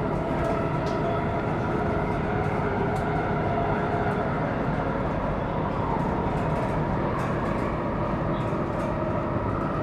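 CAF Civia electric commuter train with Siemens traction converters running, heard from inside the passenger car: steady rolling and motor noise with a few steady whining tones, one of which stops about four seconds in.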